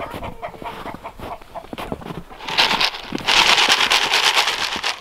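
Footsteps crunching in snow, then from about two and a half seconds in a loud, dense rattling hiss of chicken feed pellets pouring out of a paper feed bag.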